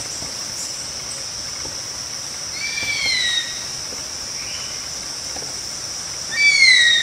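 Steady high-pitched drone of insects with a bird's whistled call twice, each call rising then falling over about a second. One call comes about two and a half seconds in; a louder one comes near the end.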